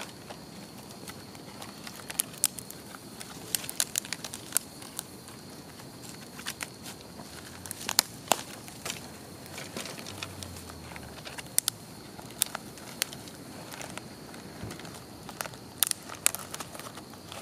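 Wood fire burning in a TOAKS backpacking wood-burning stove: irregular sharp crackles and pops, sometimes several in quick clusters, over a low hiss.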